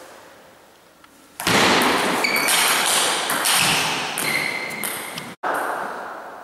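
Table tennis ball knocking against paddles and the table, with strong echo from a large hall. It is quiet for about the first second and a half, and the sound cuts out abruptly for an instant about five seconds in.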